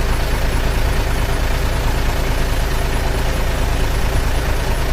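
Heavy truck engine running steadily with a low rumble, cutting off near the end.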